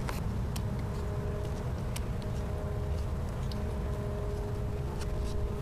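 Steady low rumble with a faint, steady two-note hum, broken by a few light clicks of a hand handling the phone and brushing the plant leaves close to the microphone.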